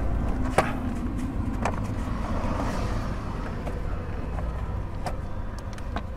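Sharp plastic clicks and knocks as a car's plastic steering-column cover is pulled and worked loose by hand, the loudest about half a second in, over a steady low rumble.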